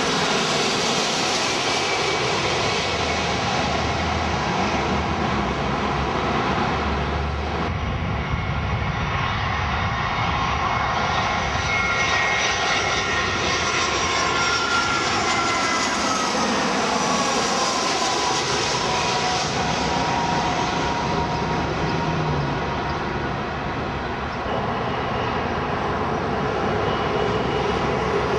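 Jet airliners passing low overhead on landing approach, one after another: first a four-engine Boeing 747, then a twin-engine jet. The engine noise is steady, and whining tones slide in pitch as each aircraft goes by.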